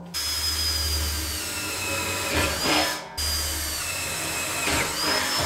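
Cordless drill boring quarter-inch holes through the sheet-steel wall of a 55-gallon drum: two runs of drilling with a brief stop about three seconds in, over a high whine that dips and rises in pitch.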